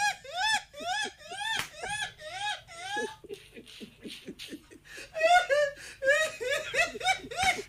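A high-pitched voice in a run of short rising-and-falling cries, about three a second. They ease off about three seconds in and pick up again around five seconds.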